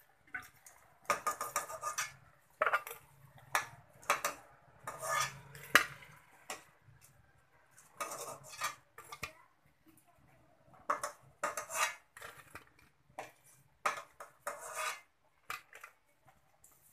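Perforated metal skimmer clinking and scraping against a metal kadhai in short, irregular bursts, some with a brief metallic ring, as fried dahi bhallas are scooped out of the hot oil.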